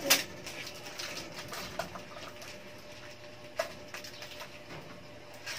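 Scissors cutting the plastic wrapping on a stainless steel oven's parts, with plastic crinkling and a few sharp clicks, the loudest right at the start.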